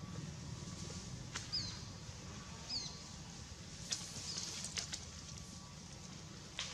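Outdoor ambience: two short high chirps about a second apart, with a few sharp clicks and light rustles over a low steady rumble.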